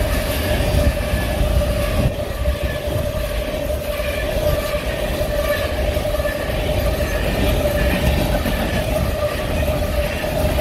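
Union Pacific freight train of empty cars rolling past: a steady rumble with a steady whine running through it, and wind buffeting the microphone.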